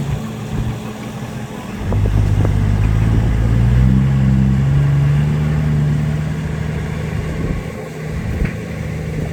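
Heavy diesel engine revving up about two seconds in, its pitch climbing for a few seconds and then slowly dropping back.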